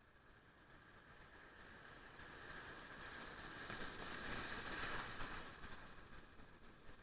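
Surf: a wave washing in on the shore, a hiss that builds for about five seconds and then dies away.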